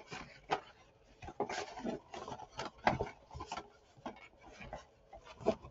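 Paper Statis-Pro Baseball player cards being handled: a fanned stack rustling, flicking and tapping as it is leafed through and set down in the cardboard game box, in short irregular rustles and taps.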